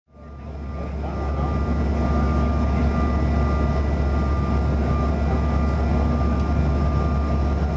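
Cabin noise of a Bombardier CRJ900 jet airliner in flight: a steady roar with a strong deep hum and a few thin, steady whining tones from its rear-mounted turbofan engines. The sound fades in over the first second.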